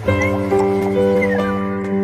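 Background music: held notes that change every half second or so, with a few short sliding high notes over them.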